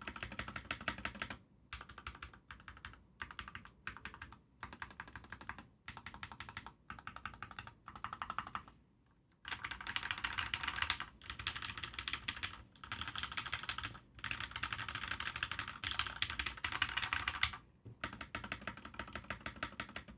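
Typing on a Fantech Maxfit61 mechanical keyboard with Gateron X switches: fast runs of key clicks in spurts with short pauses. There is a brief stop about nine seconds in, then longer, louder runs.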